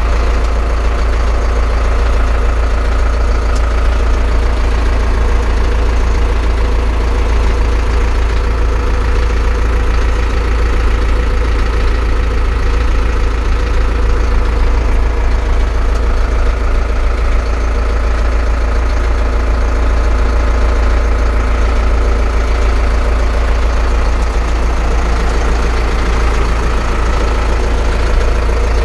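Zetor Forterra 150 HD tractor's four-cylinder diesel engine idling steadily, heard from inside the cab.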